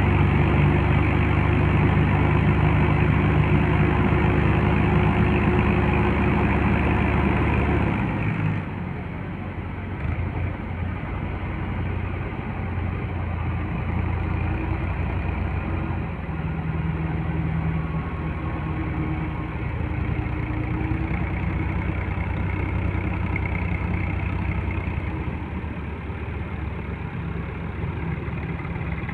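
Farm tractor diesel engines running under load, hauling a loaded sugarcane trolley. The engines are loud and steady until about eight seconds in, when the sound drops abruptly to a quieter, steady engine run.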